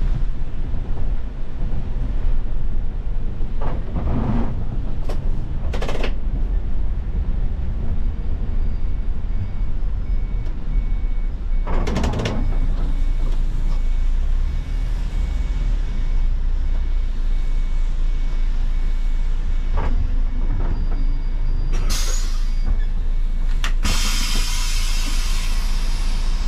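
Cabin sound of an Iveco Crossway city bus: a steady low engine and road rumble on wet tarmac, broken by a few short hisses of air. Near the end comes a long, loud hiss of compressed air as the bus stands stopped.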